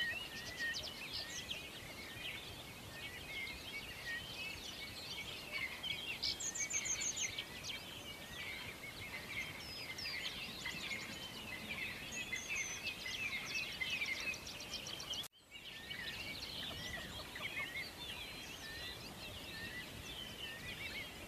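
Faint chorus of many small birds chirping and trilling, with quick repeated notes, over a low background hiss. It breaks off for a moment about fifteen seconds in.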